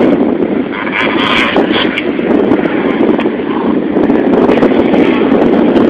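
Wind buffeting the microphone, a steady loud rumbling hiss.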